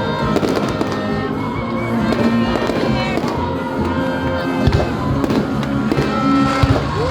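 Fireworks bursting and crackling, with a few sharp bangs in the second half, over music playing.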